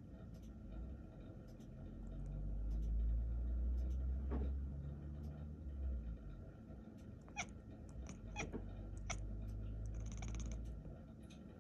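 A domestic cat watching out of a window gives several short chirps, then a quick rattling run of chatter near the end, all over a low rumble. This chirping and chattering is the excited call cats make at prey they can see but cannot reach.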